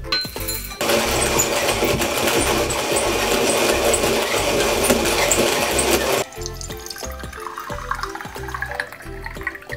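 Background music with a steady bass beat. About a second in, a loud rushing hiss cuts in, holds steady and stops suddenly about five seconds later.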